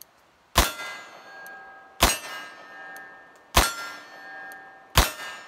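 Four shots from a Nagant M1895 revolver in 7.62 Nagant, fired double action about a second and a half apart, with a ringing tone hanging on after each.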